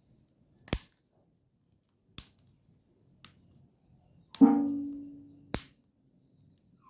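Sharp clicks about a second apart, five in all. About four and a half seconds in, one of them is followed by a low, even hum that fades over about a second and is cut off by the next click.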